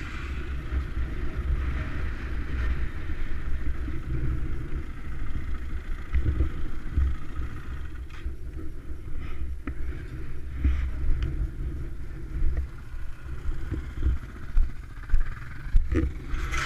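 KTM enduro motorcycle engine ticking over, with a low, uneven rumble under it. A few sharp clicks and knocks come in the second half.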